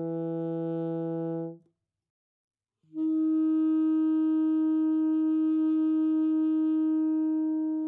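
Alto saxophone playing long tones in an overtone exercise: a sustained note an octave above the fingered low note, with the lower fundamental sounding under it. The note stops after about a second and a half. After a pause of about a second a new, slightly lower note starts and is held steadily for about five seconds, and near the end the lower fundamental comes in beneath it.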